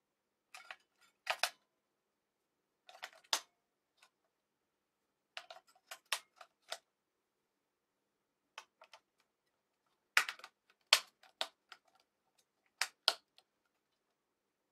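AA batteries being pushed one by one into the plastic battery box of a compact electric sewing machine, clicking against the spring contacts and casing. Several short groups of sharp clicks and taps, the loudest about ten seconds in.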